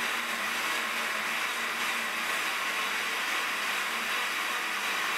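Countertop blender running steadily at speed, its blades churning pineapple, cucumber, aloe vera and water into a thin, frothy smoothie.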